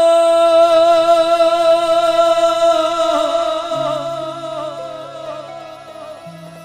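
A male singer holds one long sung "o" note in a devotional bhajan over harmonium accompaniment. The voice slowly fades over the first few seconds while sustained harmonium notes carry on beneath.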